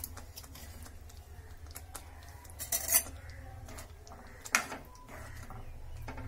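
Steel spoon clinking and scraping against a frying pan as chicken pieces are pushed into a thick masala paste, over a steady low hum. The loudest clinks come about three seconds in and again about four and a half seconds in.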